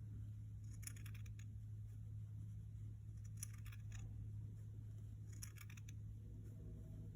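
Scissors snipping through folded fabric, cutting a fringe: faint clusters of crisp snips about every two seconds, over a low steady hum.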